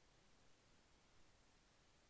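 Near silence: only a faint, even hiss.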